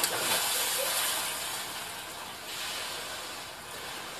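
Swimming-pool water splashing: a sudden splash at the start, then a hissing rush of spray that fades away over about two seconds.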